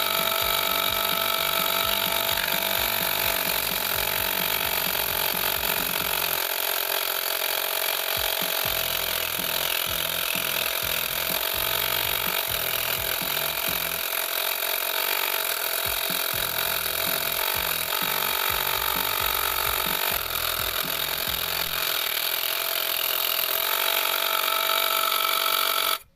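Homemade scroll saw driven by a 12 V 775 DC motor, running with a steady whine while its blade cuts through plywood. It cuts off suddenly at the very end.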